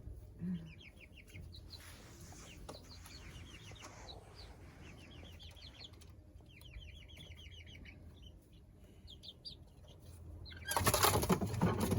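Young chickens peeping in short repeated trills, then, about a second before the end, a sudden loud burst of wing flapping as the flock startles at a crane fly passing above them.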